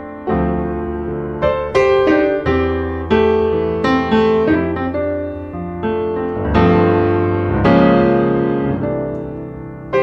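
Background piano music: a slow, gentle melody of struck notes, each ringing and fading.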